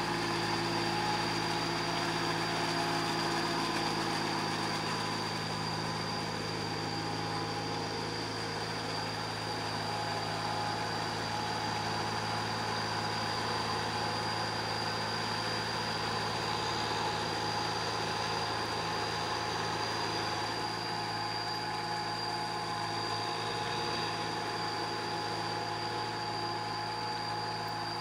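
Small compact tractor's diesel engine running steadily at working speed as the tractor, on steel cage wheels, drags a levelling board through a flooded rice paddy.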